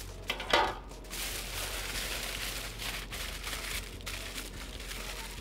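Aluminium foil crinkling and rustling as hands fold and press it around a stuffed pumpkin, loudest about half a second in.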